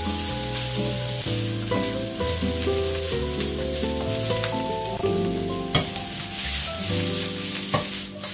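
Pork belly pieces, onion and scallions sizzling in a wok over high heat as they are stir-fried, with a couple of sharp clanks of the spatula against the wok in the second half. Background music with a moving melody and bass plays throughout.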